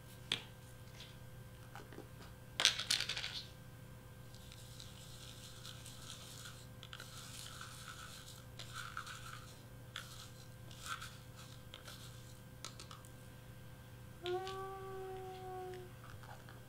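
Loose glitter and sequins in a small plastic pot being shaken and handled while mixing a shaker fill. There are light clicks, a short rattle about two and a half seconds in, and soft scratching and rustling. Near the end a brief squeak-like tone lasts about a second and a half.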